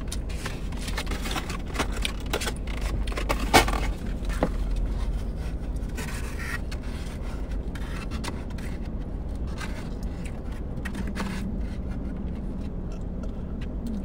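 A plastic spoon scraping and clicking against the inside of a styrofoam takeout clamshell as food is scooped out, with the loudest scrape about three and a half seconds in. A steady low hum runs underneath.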